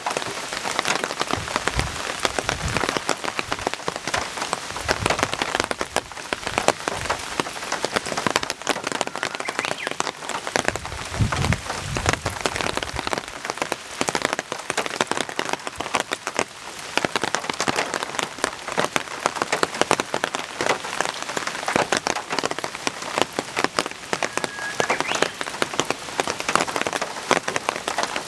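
Heavy rain falling, its drops striking surfaces close to the microphone in a dense, continuous run of small hits. A few low thuds come about two seconds in and again around eleven to twelve seconds.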